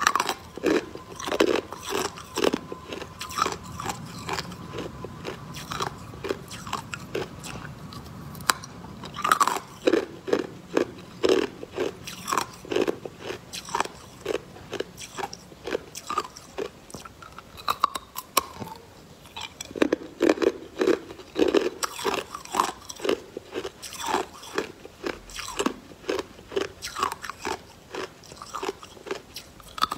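Hard clear ice on a wooden popsicle stick being bitten and crunched between the teeth, a rapid run of sharp crunches and chewing.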